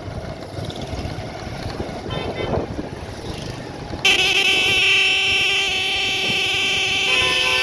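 Motorcycle riding along a rough dirt street, with engine and road rumble. About four seconds in, a loud vehicle horn starts suddenly and is held, a steady multi-tone blare that shifts pitch near the end.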